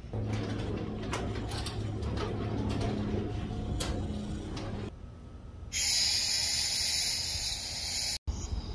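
Propane weed-burner torch with its brass valve cracked open: gas hissing steadily from the nozzle, starting suddenly about two-thirds of the way in and cut off abruptly near the end. Before it, a low steady hum with a few scattered clicks.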